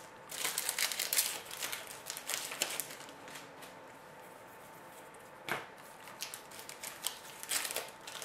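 Foil trading-card pack wrapper crinkling and crackling as it is handled and opened, in two spells, with a single sharp click in between.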